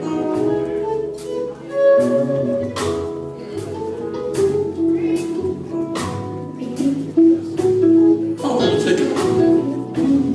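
Live gospel band playing a slow instrumental vamp: guitar and sustained chords over a steady drum beat of about one hit a second.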